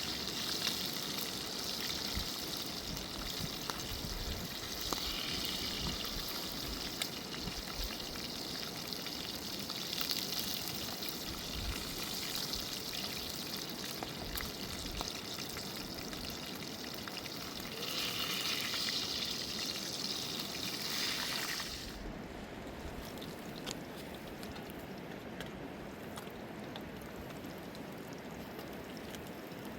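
Water rushing and splashing, with a bright hiss that swells and eases every few seconds. About three-quarters of the way through, the higher hiss drops away and the sound becomes steadier and quieter.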